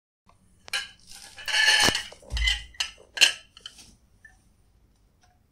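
A drinking glass being set down upside down on a plate: a few clinks and knocks of glass against the plate, with a short scraping stretch about a second and a half in. It is all over within about three seconds.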